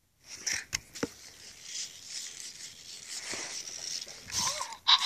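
Zoomer robot dog moving on carpet: a scratchy whirr of its small motors and wheels, with a couple of sharp clicks about a second in and a brief warbling electronic tone near the end.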